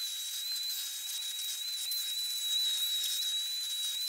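Vacuum cleaner running with its crevice nozzle sucking dust from a dryer's bearing housing: a steady rushing hiss with a thin high whistle over it that wavers slightly in pitch.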